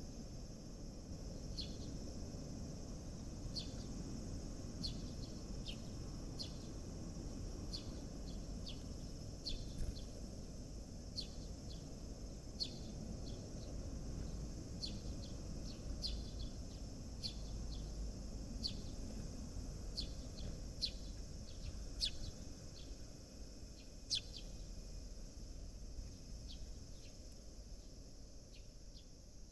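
Sparrows chirping: short, sharp chirps at irregular intervals, over a steady low background rumble.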